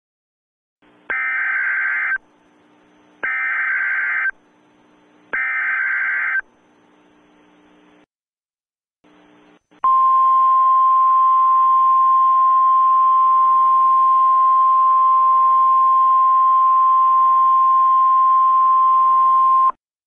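Emergency Alert System SAME header: three screeching data-tone bursts, each about a second long and about two seconds apart. Then, about halfway through, a loud steady single-pitch attention tone starts and runs for about ten seconds before cutting off suddenly, with a faint hiss underneath.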